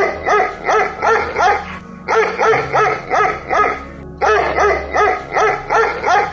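Dog barking in quick runs, about three barks a second, pausing briefly twice.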